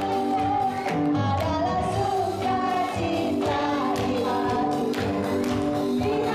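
Upbeat worship song with voices singing over an instrumental backing, the kind of action song sung at a children's praise time.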